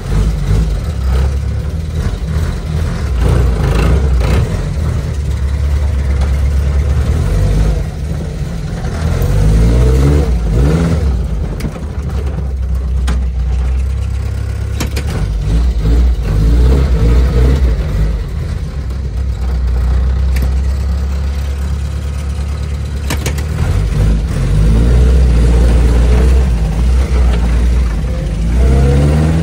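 UAZ-469B four-cylinder petrol engine running, heard from inside the cab, revving up and dropping back several times as the vehicle is driven and manoeuvred.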